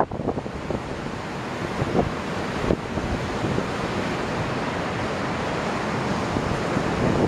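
Wind buffeting the microphone over a choppy sea, with waves washing against the concrete breakwater blocks: a steady rushing noise with a few brief louder gusts.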